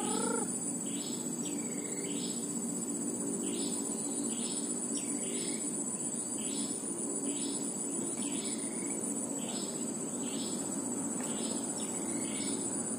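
Insects such as crickets keep up a steady, high-pitched buzz, while a bird calls over and over, about two short curved notes a second.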